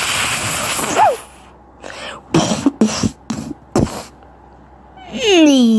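Cartoon character vocal sounds without words. First a harsh hissing noise with a brief squeak at its end, then a few short vocal bursts, and near the end a long cry that falls in pitch and settles into a held note.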